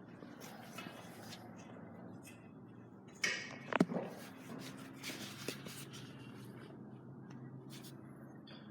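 Light clicks and knocks of handling, with a brief squeak that slides sharply down in pitch about three seconds in, over a faint steady hum.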